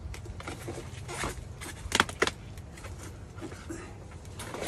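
Hive parts being worked loose: scattered clicks, knocks and a brief scrape as a stuck queen excluder is pried up from the hive box, with two sharp knocks about two seconds in the loudest. A steady low hum runs underneath.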